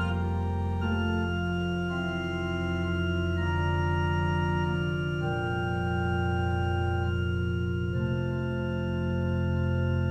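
Organ playing a slow prelude in sustained chords, a low bass note held throughout while the upper notes change every second or two.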